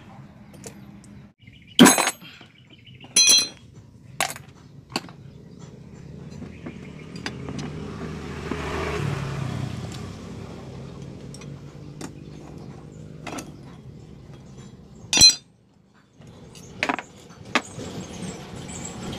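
Sharp metallic clinks and clicks of tools and metal parts as a scooter's throttle body is unbolted and handled, several in the first five seconds and one more near the end. In the middle a passing vehicle's engine rises and fades.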